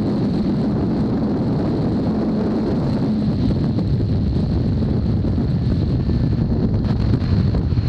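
2003 Kawasaki ZX-6R's inline-four engine running at road speed through a full Hindle titanium exhaust, mixed with wind rushing over the microphone. The sound grows louder near the end.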